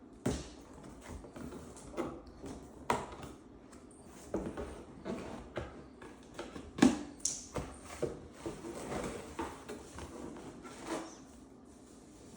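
Cardboard packaging of a Bissell vacuum cleaner being opened and handled: irregular knocks, scrapes and rustles, the loudest a sharp thump about seven seconds in.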